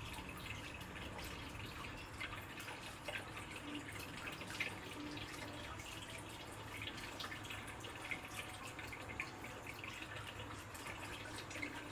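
Water dripping and trickling steadily, with many small scattered drips.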